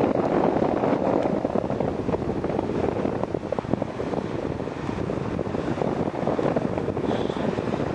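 Wind buffeting the camera microphone high aloft under a parasail: a steady, rough rushing noise that eases slightly partway through.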